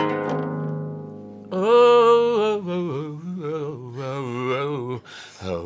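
Oud's last plucked notes ringing and fading away, then a voice sings a held, wavering melody line over the closing seconds.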